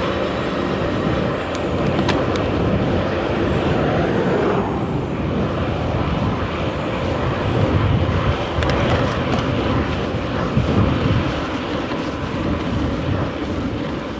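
Wind rushing and buffeting on the microphone of a handlebar-mounted camera on a moving bicycle, a loud, steady, rumbling noise that swells and dips.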